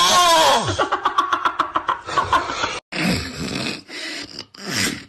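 A sleeping person snoring: a long moan-like sound falling in pitch ends about half a second in, then a rapid rattling flutter of about ten pulses a second. After a sudden break, loud breathy snores follow.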